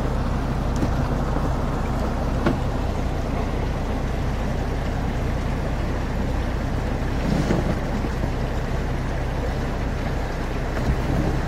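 Engine and tyre noise inside an off-road vehicle's cabin while driving over a rough, rocky dirt track: a steady low hum with a rumbling haze, and one sharp knock about two and a half seconds in.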